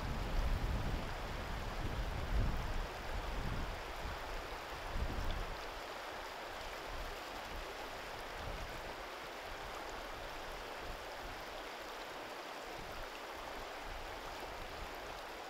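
Muddy river water flowing steadily past, with low rumbling in the first five seconds or so.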